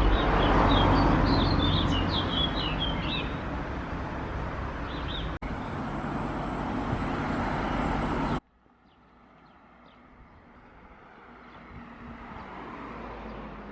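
Outdoor ambience. A loud, steady rushing noise carries small birds chirping over it for the first few seconds. It cuts off abruptly about eight seconds in, and a much quieter rush then slowly grows louder.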